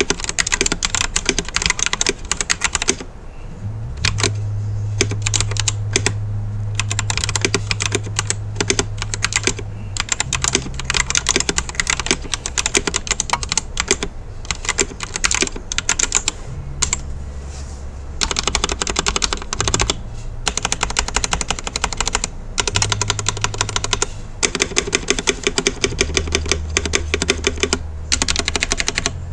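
Rapid typing on a budget XISOGUU hot-swap mechanical keyboard with its stock switches and thin OEM-profile keycaps, a dense run of key clicks and clacks with a brief pause about three seconds in. A low steady hum sits underneath and shifts in pitch every few seconds.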